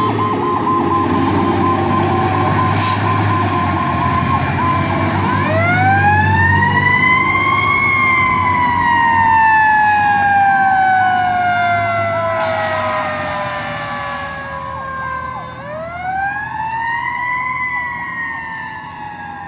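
Fire engine siren wailing over the truck's engine rumble. About five seconds in it rises for two to three seconds, falls slowly for about eight, then rises and falls again. It fades as the truck pulls away.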